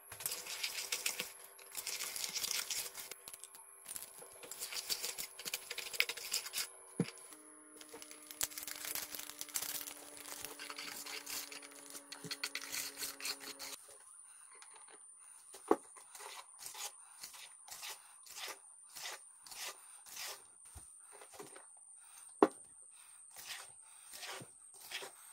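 Wire whisk beating a batter in a bowl, fast and rattly at first. Over the second half it slows to about one and a half strokes a second as flour is worked into a stiff cookie dough, with two sharp knocks of the whisk against the bowl.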